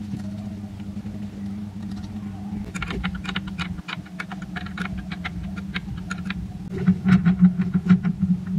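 Quick light clicks and taps of steel parts being handled, several a second, starting about three seconds in, over a steady low hum that grows louder near the end.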